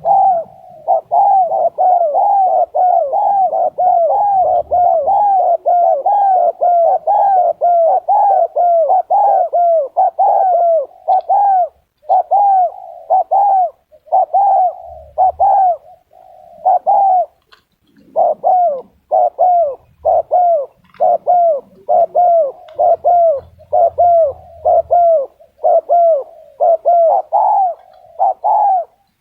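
A captive dove with a small, high voice cooing continuously in a fast run of short rising-and-falling notes, about two a second, with a few brief pauses.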